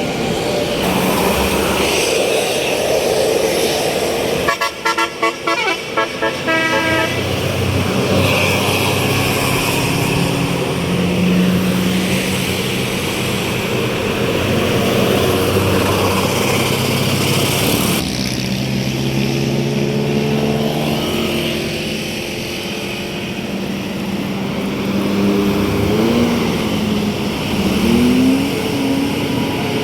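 Indonesian tour buses sounding Basuri multi-tone "telolet" horns, playing runs of musical horn notes over engine and road noise as they pass. About five seconds in comes a quick stuttering string of short notes, and near the end some notes slide up in pitch.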